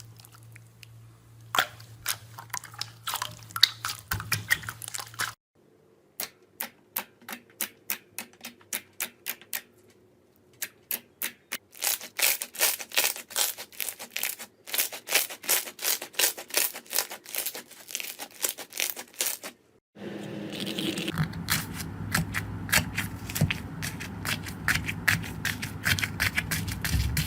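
Slime being squeezed and pressed, giving quick runs of sharp crackles and pops. The sound changes abruptly twice as one slime clip gives way to the next.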